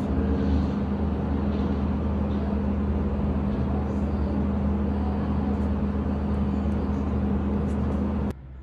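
Steady machine hum with a low drone, cutting off abruptly near the end.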